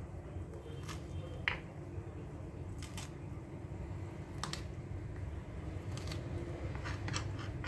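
Garlic cloves being crushed under the flat of a kitchen knife pressed down by hand on a wooden chopping board: a handful of scattered sharp clicks and taps over a steady low background hum.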